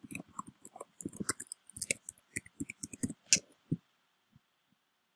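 Computer keyboard typing: a quick, uneven run of key taps that stops about four seconds in, followed by two or three faint clicks.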